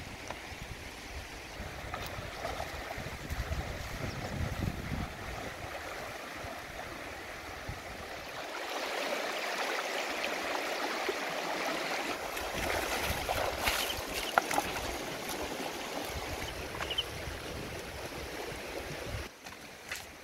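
Shallow, fast river water rushing and splashing as a person wades across it, loudest from about eight seconds in. Before that, a low rumble of wind on the microphone.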